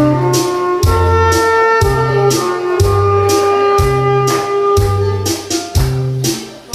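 Saxophone playing a melody over a steady beat of bass and drums.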